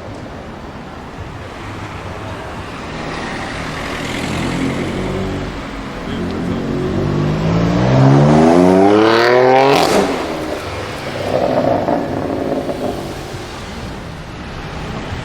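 BMW M4 F82's twin-turbo straight-six through an Akrapovic exhaust, accelerating hard: the engine note climbs steeply to a loud peak about ten seconds in, then drops away.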